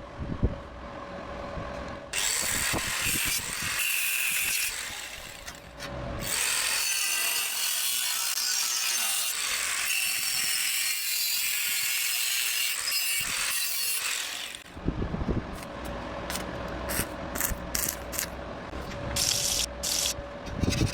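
A power tool cutting through steel angle iron: two short cuts, then one steady cut of about eight seconds with a hissing, grinding sound. Light metallic clicks and knocks follow.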